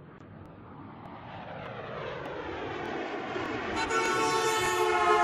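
A vehicle approaching and growing steadily louder, then sounding its horn in one steady blast starting about four seconds in.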